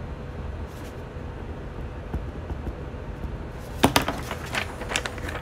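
A sheet of paper being picked up and handled: a run of sharp clicks and rustles starting near four seconds in, over a steady low room rumble.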